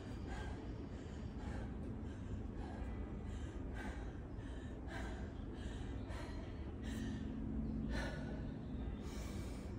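A woman breathing hard and fast, catching her breath between sets in the middle of a high-intensity workout, with a steady low background rumble.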